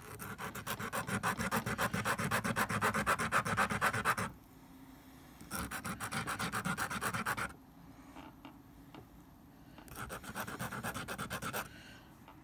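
Dentalium shell rubbed rapidly back and forth on a glass nail file, grinding its end even. The filing comes in three bouts of quick rasping strokes, with short pauses between them.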